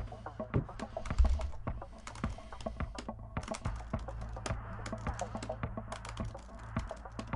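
Typing on a computer keyboard: quick, irregular key clicks over a low steady drone.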